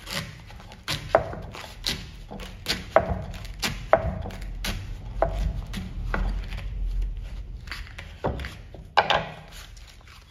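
Kitchen knife cutting through the stem end of an ear of corn in its husk on a wooden cutting board: a series of sharp crunching knocks, about one to two a second, with fewer in the middle and a couple more near the end.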